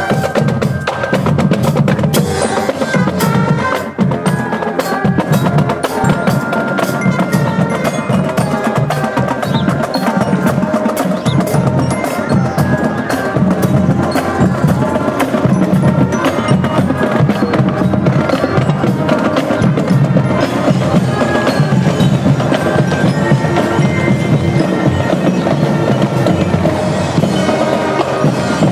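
Marching band playing, led by drums and a bell lyre: rapid snare and bass drum strokes under ringing glockenspiel-like bell notes.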